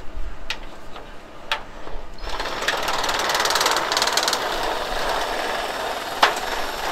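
A few light handling clicks, then from about two seconds in a cordless reciprocating saw runs steadily, its blade cutting through thin sheet metal.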